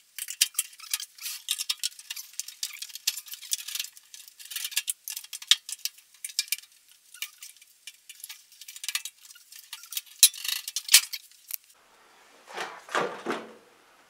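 Screwdriver prying and scraping at the sheet-metal outer cover of a Panasonic microwave oven, a quick irregular run of light metallic clicks and scrapes as the cover's edge is worked loose from its catches. A louder, deeper sound comes near the end as the cover comes free.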